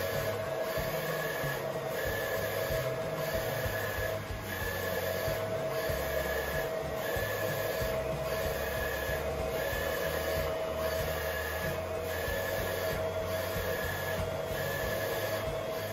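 Roland 64-inch wide-format printer-cutter printing vinyl decals. Its print head carriage whirs back and forth along the rail, about one pass a second, with a short break each time it reverses.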